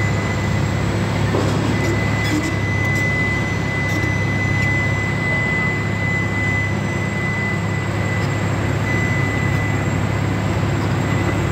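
Volvo EC210D tracked excavator's diesel engine running steadily. A thin, steady high whine sits over it from about two seconds in until near the end.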